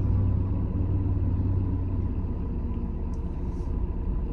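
Low, steady rumble of a car's engine running, heard from inside the closed cabin.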